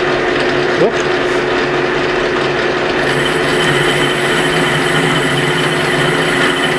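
Metal lathe running steadily with a shaft spinning in the chuck and the cutting tool working on its end, a steady machine hum. There is one short knock just under a second in, and a thin high whine joins about three seconds in.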